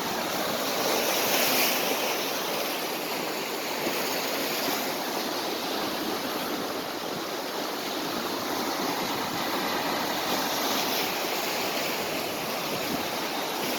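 Wind-driven waves on Lake Winnipeg breaking and washing onto the shore: a steady rush of surf, slightly louder a second or two in.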